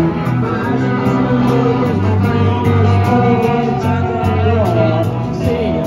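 Live band playing amplified music: electric guitars and bass over drums with a steady beat, with some bending notes near the end.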